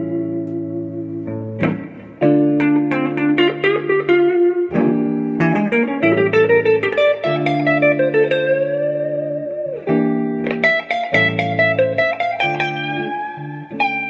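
Electric guitar playing single-note lines with bends and vibrato over a looped backing of sustained jazz chords from the same guitar, the chords changing every two to three seconds.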